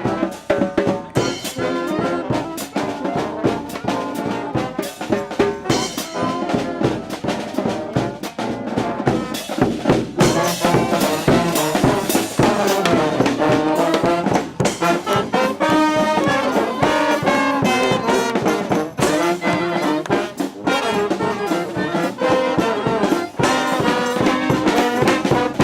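Marching brass band playing live, trombones and trumpets over steady drum hits.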